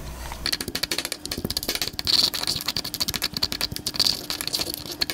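Stone pestle mashing garlic cloves and butter in a stone mortar: a fast, continuous run of clicks and scrapes of stone on stone, starting about half a second in.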